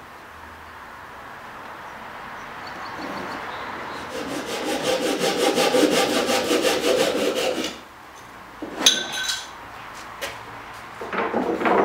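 Small hand saw cutting a thin cedar strip in quick, even strokes, about five a second, which stop suddenly; a sharp clack with a brief ring follows, then a few light knocks.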